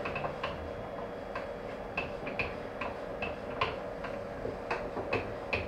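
Irregular small clicks and ticks from a thread tap cutting into a brass pin as it is wound in by hand through the chuck of a Proxxon mini pillar drill. A faint steady hum stops near the end.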